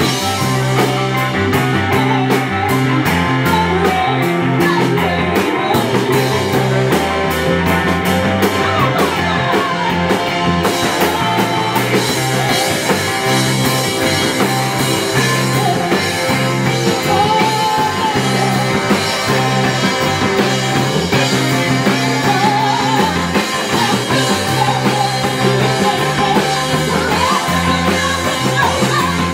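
Live R&B band playing: bass guitar and drums under keyboard, with a saxophone and voice carrying the melody.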